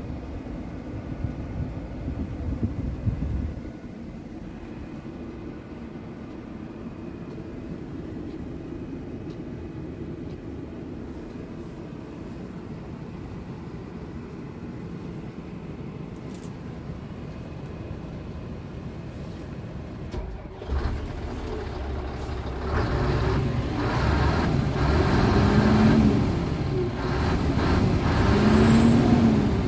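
Diesel engine of a 2006 Scania R tractor unit idling in neutral, heard inside the cab. In the last several seconds it is revved twice, the pitch rising and falling back each time.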